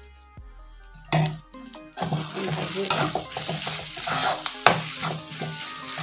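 Steel spoon stirring and scraping mashed potato and egg frying in oil in a kadai, with sizzling. A sharp scrape comes about a second in, and quick continuous mixing strokes follow from about two seconds in.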